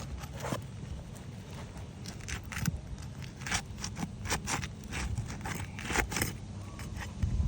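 Asphalt roof shingles being pried up with a shingle removal bar to break their sealant strip: a run of irregular short scrapes and crackles as the tool works under the shingles. The shingles are tearing as they are lifted.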